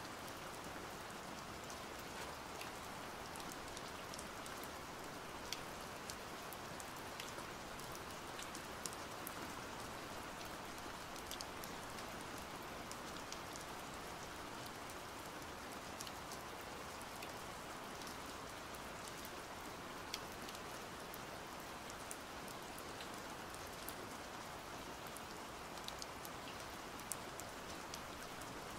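Steady rain with many small drops ticking on a surface.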